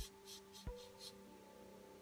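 Felt-tip marker tapping and scratching on paper: a few short scratchy dabs and two soft taps in the first second, then only a faint steady hum.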